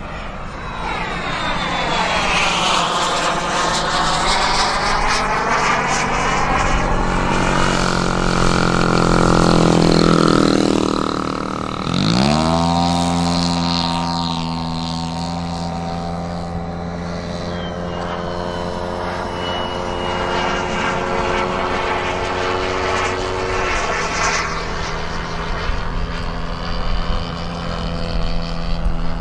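Twin-cylinder 100cc gasoline engine (DLE-100) of a large RC Super Decathlon, swinging a 28-inch propeller in flight. The pitch sweeps down as the plane flies by, then rises sharply about twelve seconds in and holds steady.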